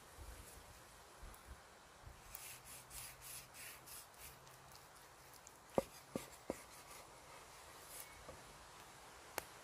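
Large chef's knife cutting through roasted stuffed peppers on a wooden board: a run of quick, scratchy sawing strokes, then three sharp taps of the blade on the board, with one more near the end. Faint.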